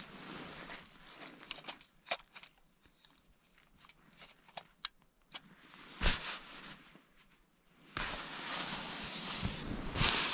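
Rustling with scattered clicks and soft knocks of someone handling gear close to the microphone, a dull thump about six seconds in, and steady rustling from about eight seconds on.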